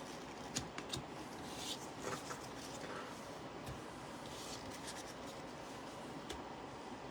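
Trading cards and packs being handled: faint rustling with a few light clicks scattered through.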